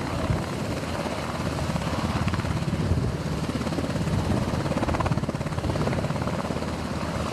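Helicopter running overhead, its rotor giving a steady, fast, even chop.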